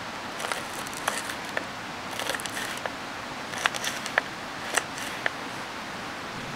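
Kitchen knife chopping green chillies on a plastic cutting board: a dozen or so sharp taps of the blade on the board, unevenly spaced, over a steady hiss.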